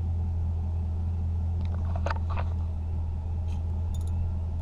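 A few light metallic clicks of a socket and extension being fitted onto a newly installed engine coolant temperature sensor, over a steady low hum.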